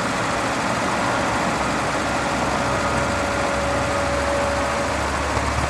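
Forklift's freshly rebuilt Nissan K21 four-cylinder LP-gas engine running under hydraulic load while the triple mast lifts. The low engine rumble grows stronger about a second and a half in, and a thin steady whine sounds over it from about halfway through until near the end.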